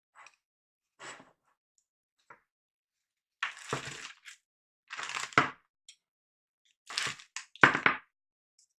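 Plastic mounting bracket being handled and pressed onto the pump head of a Cooler Master MasterLiquid ML120L all-in-one water cooler: three short bouts of rustling and cracking clicks, with the sharpest snaps about five and a half and seven and a half seconds in.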